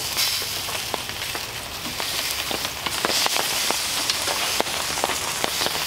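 Rain pattering mixed with the sizzle and crackle of a ribeye steak on a hot steel grill top over a rocket stove fire: a steady hiss dotted with many small sharp ticks.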